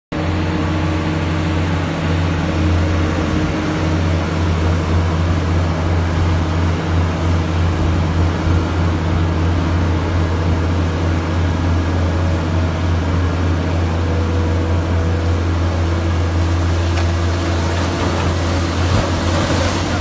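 Heavy hydraulic excavator's engine running with a steady low drone while it digs and loads wet dredged mud. Near the end there is a brief splashing rush as a bucketload of mud and water pours into the hopper barge's hold.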